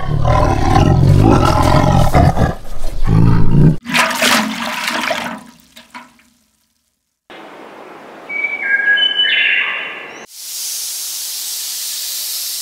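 A big cat roaring and growling, loud and low, for the first few seconds. After a short gap, a few short stepped tones sound, and then a steady rushing hiss takes over near the end.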